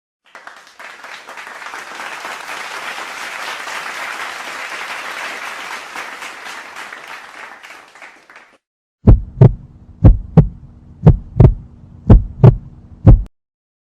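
A crowd applauding for about eight seconds, fading in and out. After a short gap comes a heartbeat sound effect: about five double lub-dub thumps, roughly one a second, over a steady low hum.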